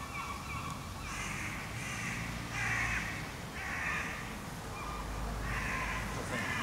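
A bird calling outdoors, about six harsh calls of roughly half a second each, spaced a second or so apart.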